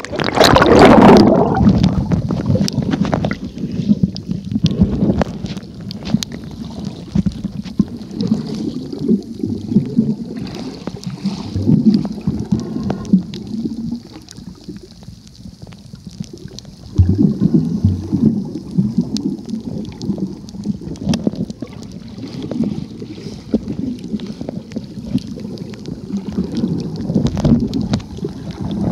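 Water noise heard through a camera microphone held underwater: a loud splash about a second in as it goes under, then muffled sloshing and gurgling that swells and fades, with another loud surge about halfway through.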